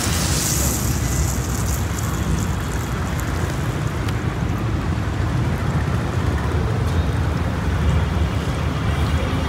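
Hot oil in an iron kadai sizzling as battered pieces deep-fry, the sizzle strongest in the first second or so and then settling. Under it runs a steady low rumble.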